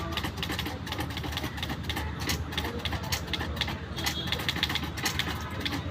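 Rapid, uneven clatter of an old manual typewriter, its keys striking several times a second in fast typing, over a steady low background hum.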